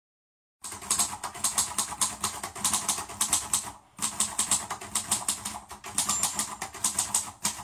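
Rapid keyboard typing, about five or six sharp key clicks a second, in runs with two brief pauses.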